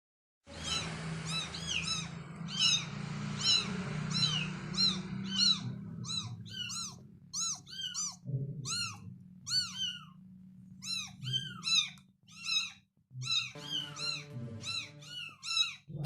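A kitten mewing over and over, short high-pitched calls that each rise and fall, about two a second.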